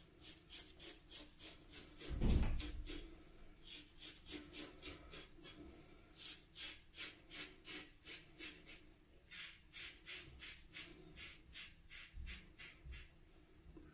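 Feather ASD2 double-edge safety razor scraping through lathered stubble in quick, short strokes, about three a second, on the last of three passes. There is a low thump about two seconds in.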